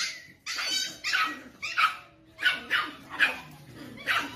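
Dog barking in short, high-pitched yaps, about seven in a row with short gaps between them.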